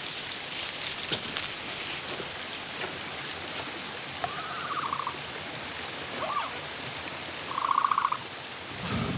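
Heavy rain falls steadily while a Dilophosaurus gives trilling, warbling calls: one about four seconds in, a short rising chirp, then a louder trill near the end.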